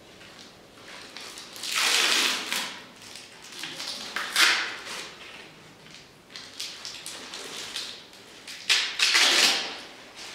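Clear plastic film crinkling as gloved hands handle it, in three loud rustling bursts: one about two seconds in, a shorter one around four seconds, and one near the end, with softer rustles between.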